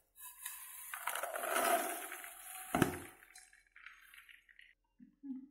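Freshly popped popcorn poured from a metal pan into a plastic bowl: a rustling tumble of kernels with one sharp knock near three seconds in, then it fades to faint scraping.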